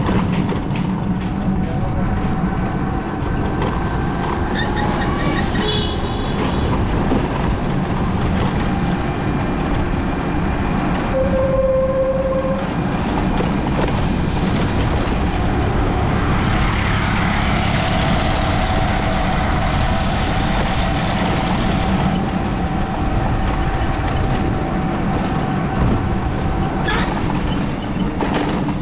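Steady rumble and rattle of a vehicle driving along a paved road, heard from aboard, with a brief high beep about halfway through.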